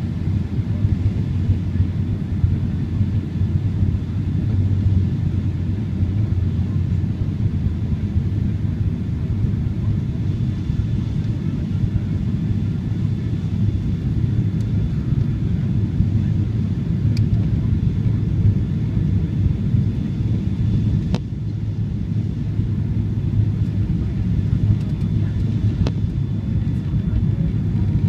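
Steady low rumble of cabin noise inside a Boeing 777-300 airliner descending with its flaps extended, with a faint steady high whine over it. Two brief clicks come past the middle.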